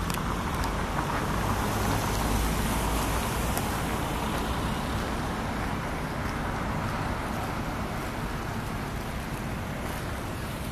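Steady road traffic noise from passing cars, a low rumble with tyre hiss, a little louder in the first few seconds and then easing slightly.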